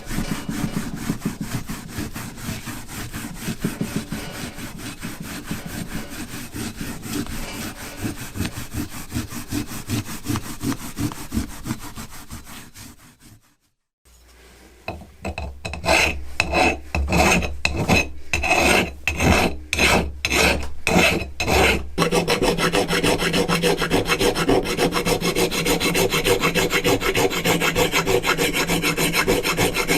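Wood being worked with a rasp or file. First comes rapid, continuous scraping. After a short break come slower strokes, about two a second, over a low hum. The last part is a steady scraping with a steady tone running under it.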